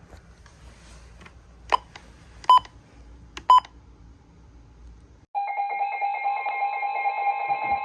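Three short electronic beeps over a faint hum, then an abrupt cut to a loud, steady alert tone of several held pitches: an Emergency Alert System attention signal.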